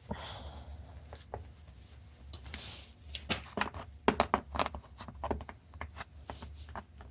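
Irregular small clicks and taps, with a couple of brief rustles, as pieces of an impact socket set (square-drive bits and their holder) are handled.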